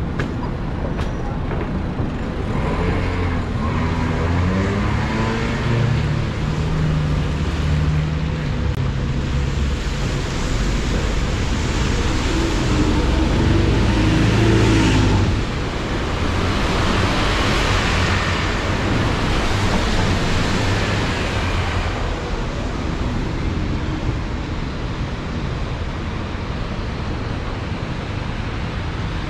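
City street traffic: passing vehicles with a low engine drone that rises and falls in pitch through the first half, then a tyre hiss that swells and fades near the middle.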